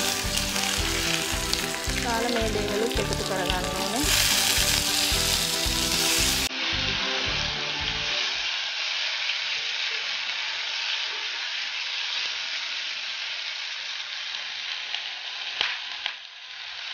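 Coconut oil sizzling steadily in a frying pan as curry leaves, garlic and mustard seeds fry, and then onions, tomatoes and green chillies, with a spatula stirring and a click near the end. Background music with a beat plays under the sizzle and stops about eight seconds in.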